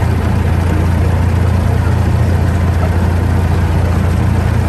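Engine of a miniature amusement-park train locomotive running steadily as the train rolls along the track, a loud, even low drone.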